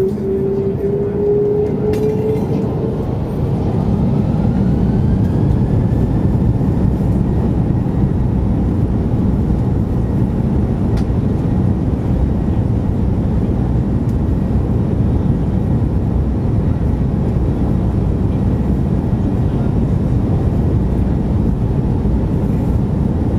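Airbus A330-200 heard from inside the cabin during the takeoff roll: a rising engine whine for the first few seconds as thrust comes up, then a loud, steady rumble of the engines and the wheels on the runway.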